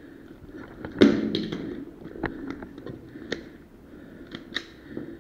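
Sharp knocks and clicks inside a bare concrete building. One loud bang about a second in trails off in a short echo, and lighter clicks and taps follow roughly once a second.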